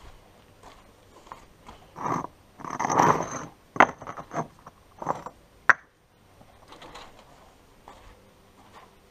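Concrete paving blocks being taken off a stacked pallet by hand: scraping of block on block and a few sharp clacks, between about two and six seconds in.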